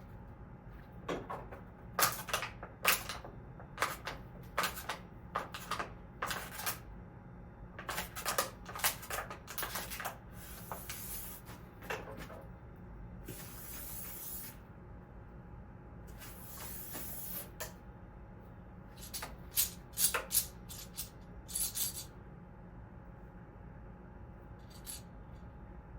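Live sound effects made by hand with everyday objects: a run of sharp clinks and taps in several clusters, with two hissing bursts of a second or so around the middle.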